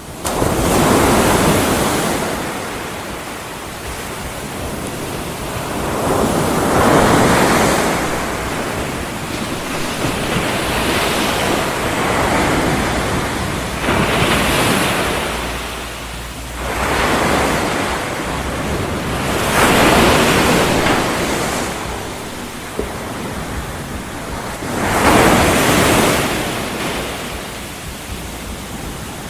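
Ocean surf used as a white-noise bed: a continuous rushing noise that swells and ebbs, with louder surges about every five to six seconds, like waves breaking and washing back.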